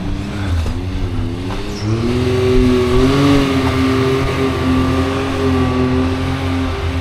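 Arrma Vorteks RC truck's electric motor and drivetrain running under varying throttle: a whine that wavers in pitch and steps up about two seconds in, holding higher for the rest of the run.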